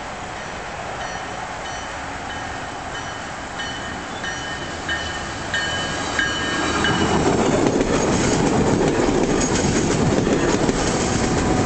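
A grade-crossing warning bell rings steadily while a Tri-Rail bi-level commuter train approaches. From about six seconds in the train passes close by, its wheels clattering and rumbling on the rails and getting loud as the double-deck coaches go past.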